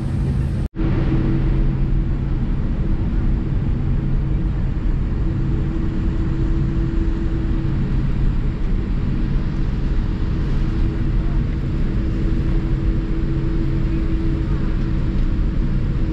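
Steady engine rumble and hum heard inside the cabin of a Boeing 787-8 airliner, with two steady low tones running through it. The sound drops out for an instant about a second in.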